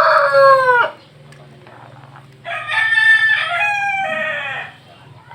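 Rooster crowing twice. One crow ends with a falling note about a second in, and a second, higher crow starts about two and a half seconds in, lasts about two seconds and trails off downward.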